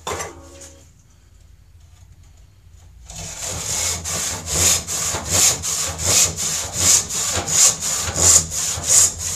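Handsaw rip-cutting along a wooden board. The sawing starts about three seconds in and goes on in steady, even back-and-forth strokes.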